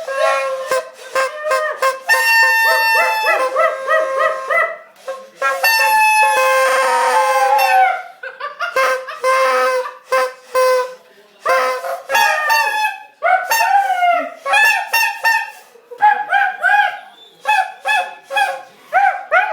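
Honking in several overlapping pitches, short honks mixed with longer held ones and barely a pause between them, over a steady low note.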